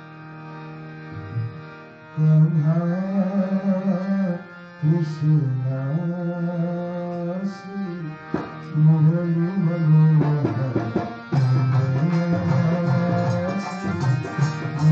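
Harmonium holding a steady chord, then from about two seconds in a man sings a devotional bhajan melody over the harmonium, with tabla strokes joining in from about halfway.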